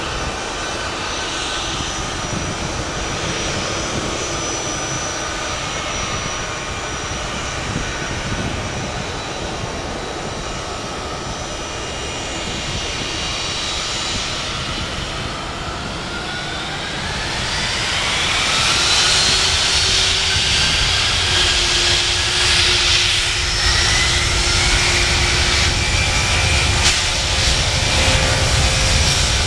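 Boeing 757-200F freighter's twin turbofan engines whining at low thrust, then spooling up with a rising whine about halfway through to takeoff power. The higher whine then holds while a low rumble builds near the end as the takeoff roll begins.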